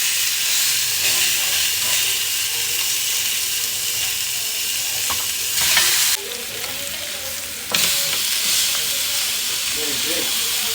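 Food frying in a hot pan, a loud steady sizzle. It drops abruptly quieter about six seconds in, then comes back up a second and a half later.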